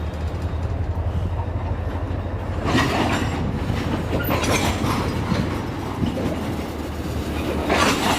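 Freight train of propane tank cars rolling slowly past, with wheels clattering over the rail joints above a steady low diesel locomotive drone. The clatter swells about three seconds in and again near the end.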